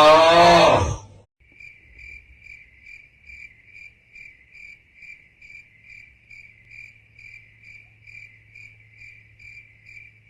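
Cricket chirping sound effect: a steady, even train of high chirps, about two to three a second, over a faint low hum. It is the meme cue for an awkward silence. In the first second a loud voice-like sound, bending in pitch, cuts off just before the chirping begins.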